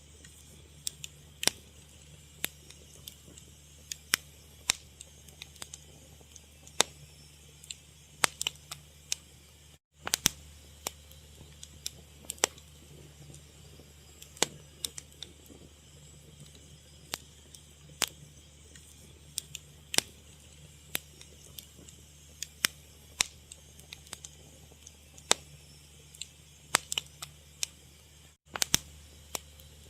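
Wood fire crackling: irregular sharp pops and snaps, some much louder than others, over a low steady hum. The sound cuts out for a split second twice.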